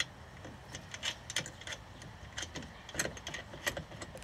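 Light, irregular metallic clicks and clinks as a washer and nut are fitted by hand onto a mirror-bracket bolt.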